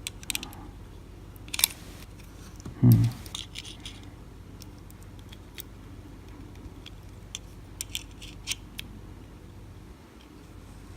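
Small metal clicks and scrapes of tools working at the stuck retaining clip of a Euro cylinder lock, with a louder dull knock about three seconds in.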